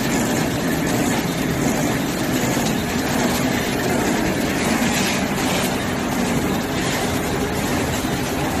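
Box shrink-wrapping machine running: a steady, even mechanical clatter and hum from its conveyor and wrapping mechanism.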